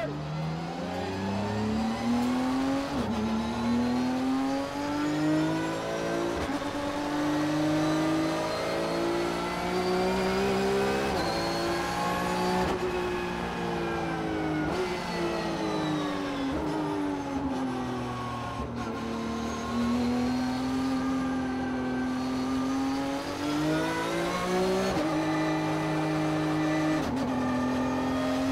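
Porsche race car's flat-six engine at full throttle, heard inside the cabin on a hot lap: the engine note climbs through the gears with a sudden drop at each upshift, falls away under braking about halfway through, then pulls up again near the end.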